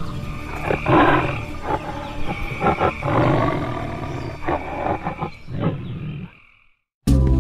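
Tiger roaring and growling several times in a row, the calls fading away near the end; music starts just before the end.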